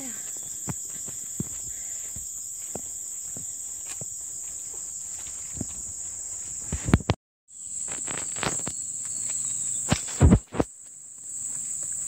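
Steady high-pitched drone of insects, with footsteps on a muddy trail and scattered knocks, the loudest thumps about seven and ten seconds in. The sound drops out briefly just after seven seconds.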